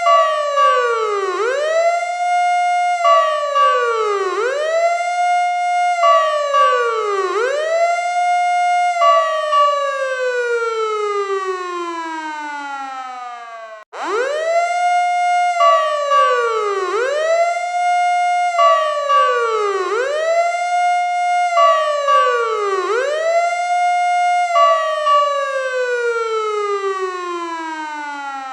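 Fire truck siren wailing in quick rise-and-fall sweeps about every one and a half seconds, then winding down in one long falling tone. The sequence cuts off about halfway through and starts over.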